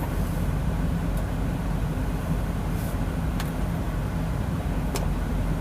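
Steady low rumble of an idling engine, with a few faint ticks.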